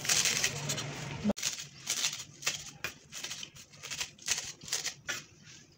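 Kitchen knife chopping fresh coriander leaves on a wooden cutting board: a quick run of light chops, several a second.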